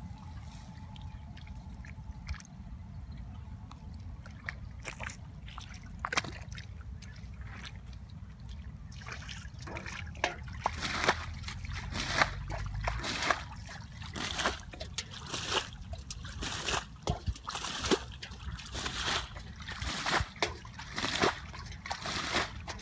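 Shallow muddy water sloshing and splashing as a metal bowl scoops and tosses water and hands work in the mud, with trickling between. It is quiet for about the first nine seconds, then comes as a run of quick splashes.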